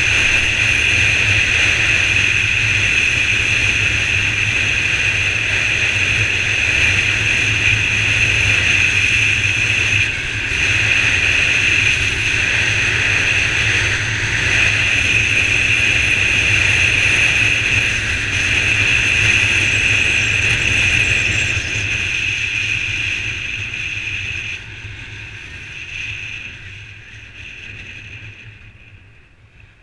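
Onboard sound of a Honda CBR125 single-cylinder motorcycle at speed: a steady rush of wind and road noise over the engine's drone. Over the last several seconds the noise dies away as the bike slows to a stop.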